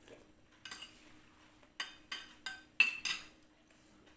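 Metal spoons clinking and scraping against ceramic and glass dishes as someone eats, about six sharp clinks in quick succession, the loudest near the end with a short ring.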